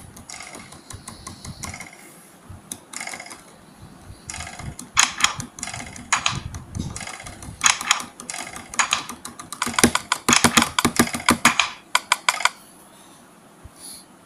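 Computer keyboard typing in bursts of fast key clicks with short pauses between, busiest about ten to eleven seconds in and stopping about a second before the end.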